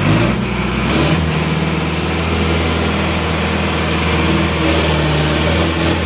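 Sonalika 750 tractor's diesel engine, fitted with a larger 61 no. turbo, revving up in the first second and then running steadily at high revs. A thin high whine climbs slowly in pitch over the engine.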